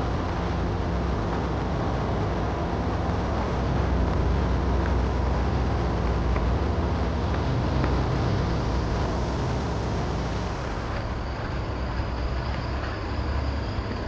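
Steady low rumble with an even hiss, outdoor background noise picked up by a handheld camera's microphone on the move, with a few faint ticks.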